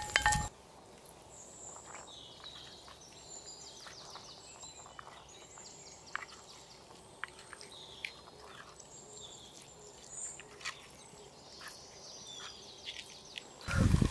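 Hot ghee with fried cashews and raisins sizzles as it is poured into the pongal, and the sound cuts off about half a second in. Then faint birds chirp over a quiet background hiss, with a few soft clicks. A louder low sound comes in just before the end.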